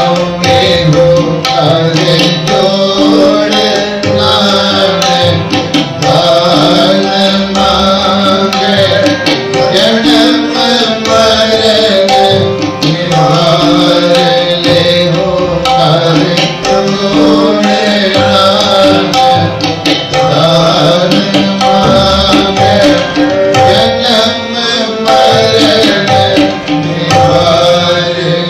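Sikh devotional kirtan music: tabla playing a steady, dense rhythm under sustained melodic tones.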